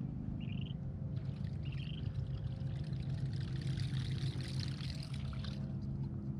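A topwater lure gurgling and splashing across the lake surface as it is reeled in, running about four and a half seconds and stopping abruptly near the end. A steady low hum sits underneath.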